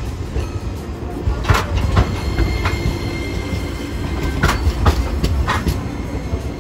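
Hiroshima Electric Railway Green Mover Max (5100 series) low-floor articulated tram passing close by at low speed. It makes a heavy low rumble, broken by a string of sharp clacks as its wheels run over the rail joints and crossings of the track junction.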